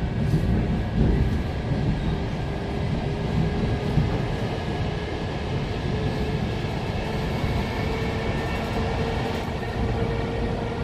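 Steady rumble of an ET2M electric multiple unit's passenger car in motion, heard from inside the saloon, with a faint steady whine underneath.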